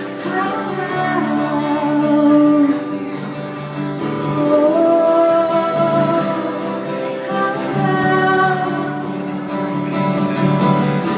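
Live acoustic music: acoustic guitar playing an instrumental passage between verses, with long held melodic notes above it.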